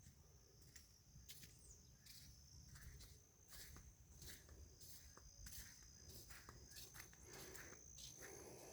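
Faint footsteps, about one or two a second, over a steady high-pitched insect drone and a low rumble.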